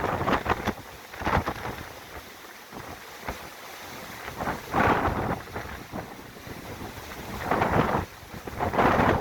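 Storm-force wind gusting against the microphone in heavy rain, coming in several loud surges with quieter spells between.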